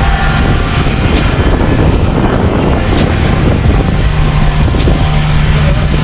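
Heavy machinery engine running steadily on the derrick crane, a loud low hum with a constant drone. Wind rumbles on the microphone from about a second in until near the end.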